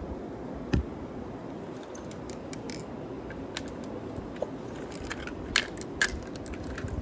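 Scattered small clicks and taps from a toy truck model being handled and set down, with one knock near the start and a few sharper clicks about five to six seconds in.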